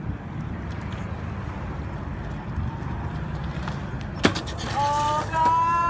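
BMX bike rolling over brick pavers, a steady rumble, with one sharp knock about four seconds in as the bike meets the concrete ledge. Near the end comes a drawn-out, slightly rising pitched call.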